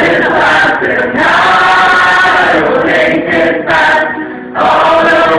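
A group of people singing loudly together in chorus, with a short break about four seconds in before the voices come back in.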